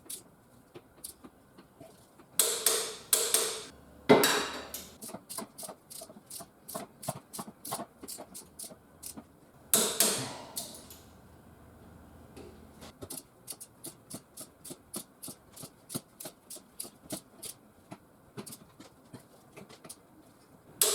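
Socket wrench ratchet clicking at about four clicks a second as hub bolts are turned down, with a few louder metallic knocks in between.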